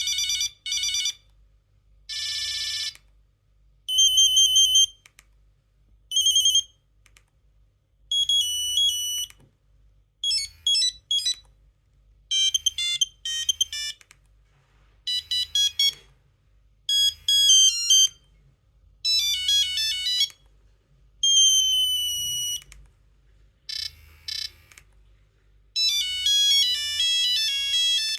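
Nokia 2100 mobile phone playing its monophonic ringtones one after another: about a dozen short, high-pitched beeping tunes, each a second or two long, with brief pauses between.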